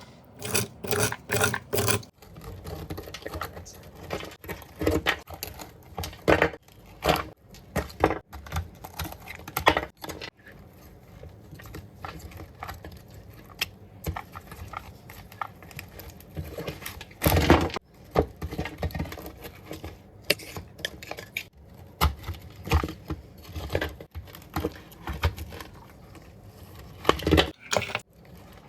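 Irregular clicks, knocks and scraping from hands-on cleaning work, with one louder knock a little past halfway.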